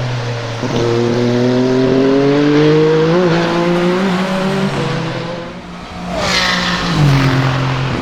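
Peugeot 9X8 hypercar's twin-turbo V6 pulling hard, its pitch climbing steadily. About six seconds in there is a short, loud noisy burst as it goes by, then a lower engine note that cuts off abruptly at the end.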